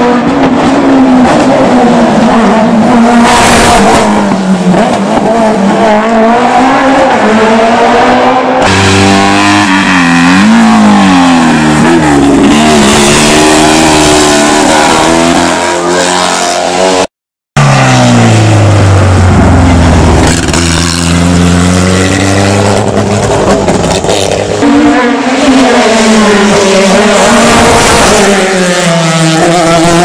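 Race car engines at full throttle on a hill climb, several cars in turn. The revs climb and drop sharply with each gear change. The sound cuts out briefly about seventeen seconds in.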